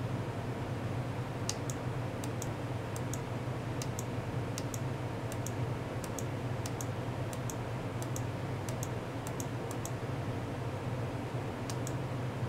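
Light clicking from someone operating a computer: pairs of sharp clicks about every half second for most of the stretch, then one more pair near the end, over a steady low hum.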